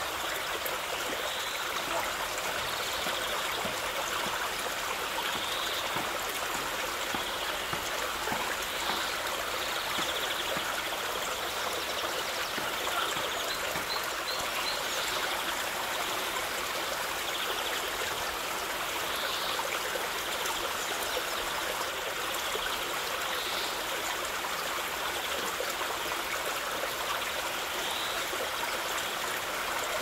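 Waterfall splashing onto rock: a steady, even rush of falling water.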